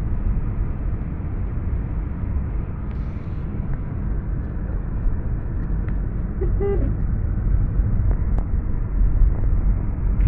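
Steady low road and engine rumble inside a moving car on a snow-covered road, with a brief car horn toot about six and a half seconds in.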